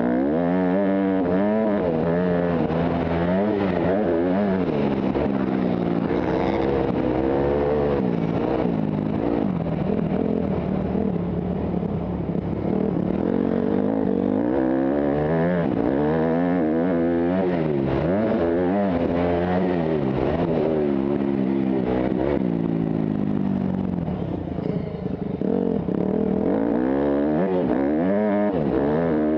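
Motocross bike engine revving hard and falling back again and again as the rider accelerates, shifts and rolls off around the dirt track, heard from a helmet-mounted camera. The engine drops off briefly a little past three quarters of the way through before pulling again.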